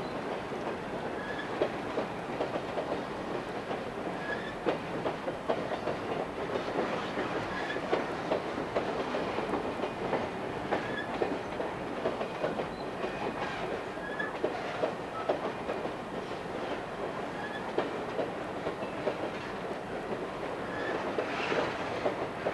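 Empty coal train cars rolling past, their wheels clattering steadily over the rail joints, with a faint short squeak recurring every few seconds.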